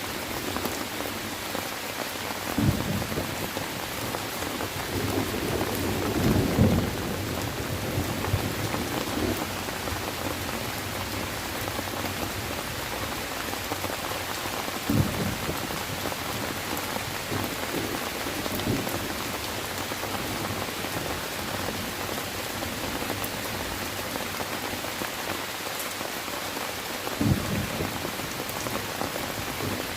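Steady rain falling, with five brief low thunder rumbles; the longest comes about five to seven seconds in.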